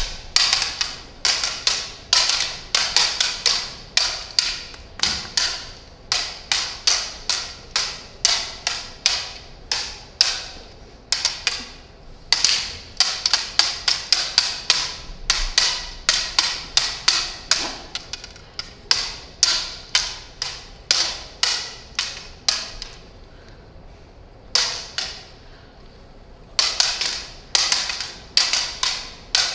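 Lightsaber combat blades, stiff plastic tubes, clacking against each other in fast exchanges of sharp strikes, several a second, with a couple of short pauses near the end.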